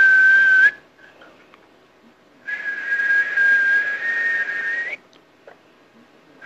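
A man whistling a steady, breathy high note. A short whistle ends with a small upward flick, and after a pause a longer one of about two and a half seconds ends the same way.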